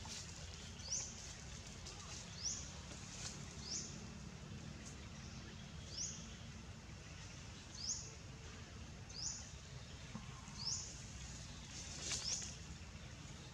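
A bird's short high chirps, each one rising quickly, repeated about every second or two over a steady low rumble of outdoor background noise.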